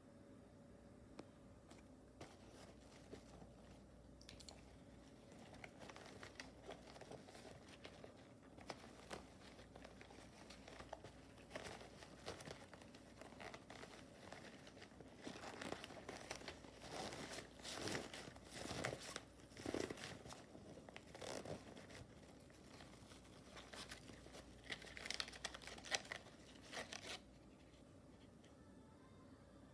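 Faint rustling, crinkling and clicking as a fabric pencil case is handled and pulled open by one hand and stationery is taken out of it. The handling noise starts a few seconds in, grows busier in the second half, and stops shortly before the end.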